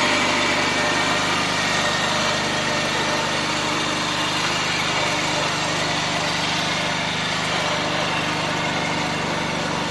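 Honda riding lawn mower's small engine running steadily as the mower drives along.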